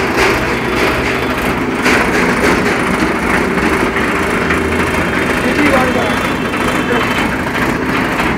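Dashmesh straw blower running steadily: a dense, even rattling noise over a low machine hum, with no let-up.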